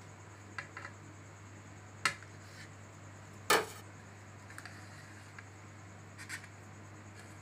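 Scattered light clinks and taps of a knife and a slotted metal spatula against a ceramic plate as a cake is cut and a slice is lifted, the loudest clink about three and a half seconds in. A faint steady hum lies underneath.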